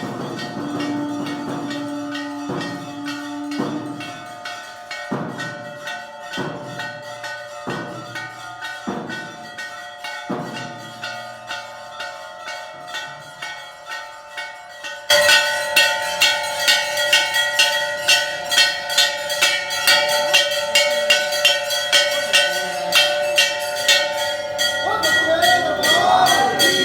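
Hindu temple bells rung by hand for the aarti, many overlapping ringing tones struck in a steady rhythm. The strokes come about once a second at first, then about halfway through the ringing gets suddenly louder and faster, about two to three strokes a second.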